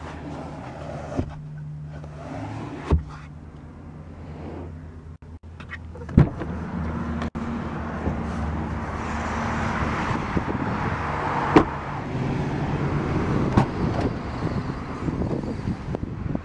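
Road traffic passing steadily, growing louder about six seconds in as the car's rear door opens, with several sharp knocks and clunks from the rear door and hatch of the hatchback being handled.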